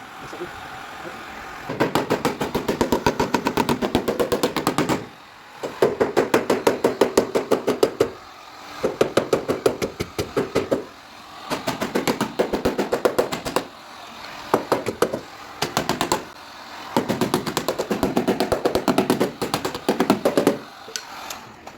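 Rapid tapping on a car's sheet-metal body panel during dent repair, in runs of two to three seconds at about ten taps a second with short pauses between, each tap ringing slightly.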